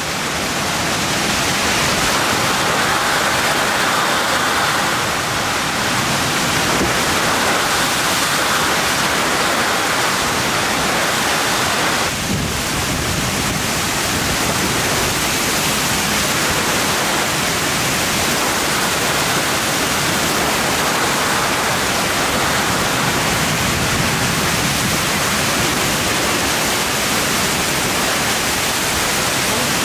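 Heavy rain pouring down in a summer thunderstorm, a loud, steady rush of rain.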